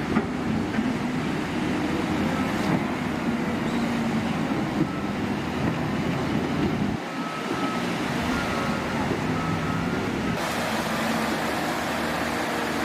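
Vehicle engine running steadily over a constant noisy background, the sound changing abruptly about seven and again about ten seconds in.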